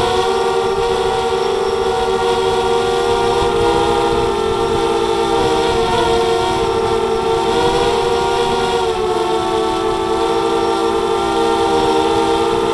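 Multirotor drone's motors and propellers whining steadily in flight: several close tones that waver slightly together, with wind noise underneath.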